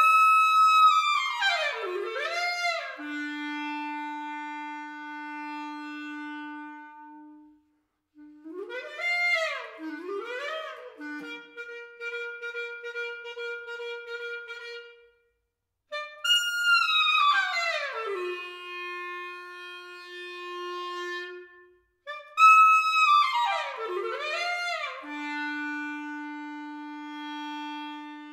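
Solo clarinet playing a contemporary piece marked Agitato, in four phrases. Each phrase opens loud with fast swooping runs down and up, then settles on a long held note that fades away before a short pause.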